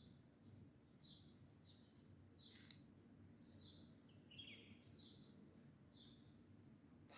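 Faint small-bird chirps, short high calls about once a second, over a steady low background hum, with one brief click near the middle.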